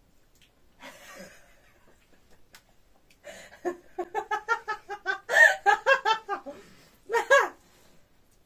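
A person laughing: a quick run of short, high-pitched "ha" pulses, about five a second, for about three seconds, then a shorter burst of laughter near the end.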